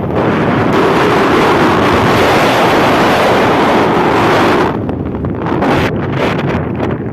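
Strong wind buffeting the microphone: a loud, steady rush that eases about two-thirds of the way through and turns into uneven gusts.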